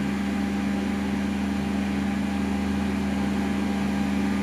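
Steady mechanical hum with a constant low buzzing tone, unchanging throughout, from room machinery running during the treatment.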